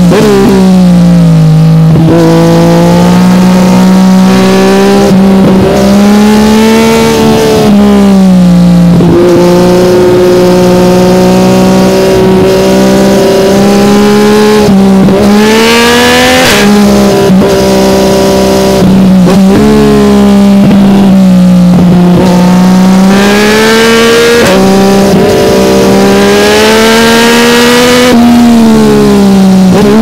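Yamaha MT-09's three-cylinder engine through an Akrapovic carbon exhaust, heard on board while riding, very loud. Engine speed repeatedly climbs and drops with short sudden breaks in the sound as it is run through the gears.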